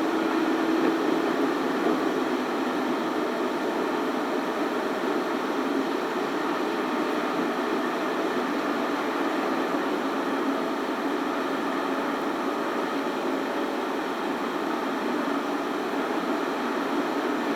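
Steady road and wind noise of a car driving along a mountain road, an even rushing sound with no distinct engine note or separate events.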